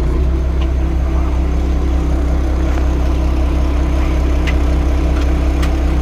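Diesel engine of a 7-tonne forklift idling steadily just after being started, with a couple of light clicks near the end.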